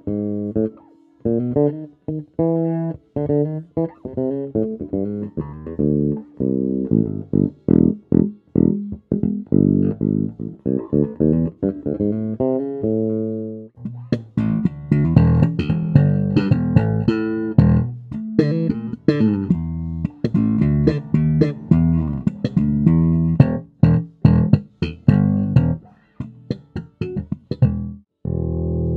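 Fujigen NJB200RAL Jazz Bass-style electric bass with Seymour Duncan SJB-1 pickups, played as a demo in a run of plucked single notes. About halfway through, the tone turns brighter and more percussive.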